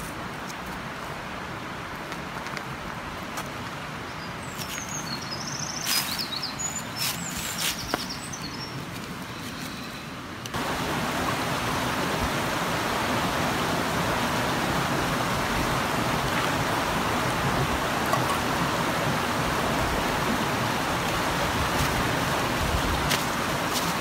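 Mountain stream rushing over rocks, a steady loud water noise that comes in suddenly about ten seconds in. Before that, quieter open-air ambience with a few short high bird chirps and several light knocks.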